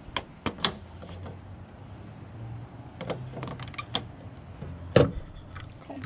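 Clicks and knocks from the diesel fuel filler flap in the driver's door jamb of a Mercedes 4x4 Thor Tranquility camper van as it is worked by hand and shut: a few light clicks at first, a cluster around the middle, and one sharper click about five seconds in.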